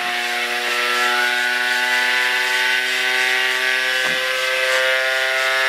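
Pulse DC motor with one coil and one neodymium magnet rotor, running with a steady pitched electrical buzz full of overtones as its coil is fired once per turn. The pitch edges slightly higher over the first few seconds while the pulse duration is being stepped up, which makes the motor louder.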